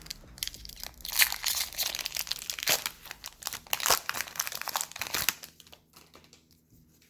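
Foil wrapper of a Pokémon trading-card booster pack crinkling as it is handled and torn open. The dense crackling lasts about five seconds, then dies down to faint rustling.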